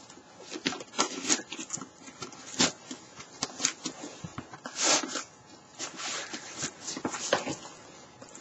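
Foam armor piece and undersuit fabric rubbing and rustling in short, irregular scrapes as the arm is moved about, with a few longer swishes.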